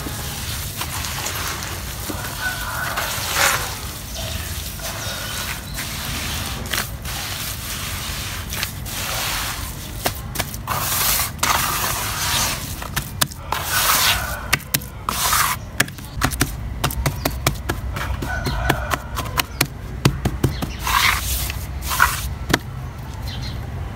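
Hands squeezing and kneading a thick paste of red soil and water in a plastic tub: wet squelching and crumbling, with many quick sharp slaps and clicks in the second half as the hands pat and press the smoothed surface.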